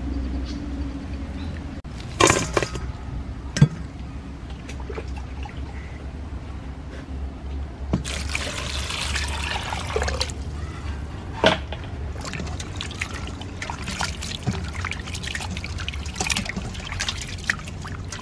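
Water splashing and trickling as raw shrimp are washed by hand in a basin, with a rush of poured water lasting about two seconds near the middle. Two sharp knocks come a few seconds in, and a steady low hum runs underneath.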